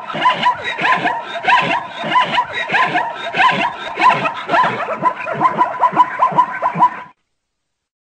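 Zebra calling: a fast run of barking, hiccuping 'kwa-ha' calls, several a second, that cuts off suddenly about seven seconds in.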